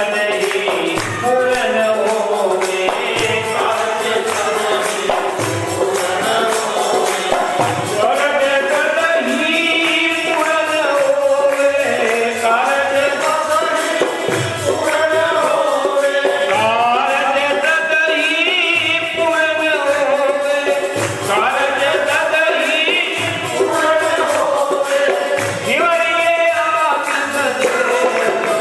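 Devotional bhajan kirtan music: melodic singing over jingling hand percussion keeping a quick, steady beat.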